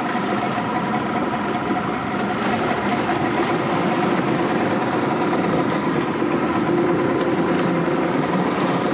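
60 hp outboard motor on a panga running steadily, a little louder from about four seconds in, with water rushing along the hull.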